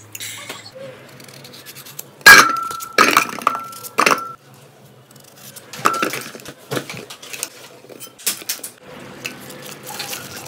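Metal saucepan clanking as peeled pieces are dropped into it: several sharp knocks with a brief metallic ring after each, loudest about two seconds in. Softer knocks and rustling follow near the end.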